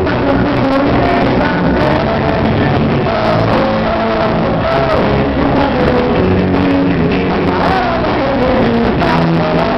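A live band playing loud music through a concert PA sound system, with a singer's voice over the instruments.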